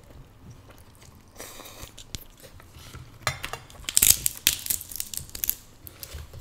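King crab leg shell being cracked and pulled apart by hand: a run of sharp crunches and snaps starting about three seconds in, with soft close-miked chewing.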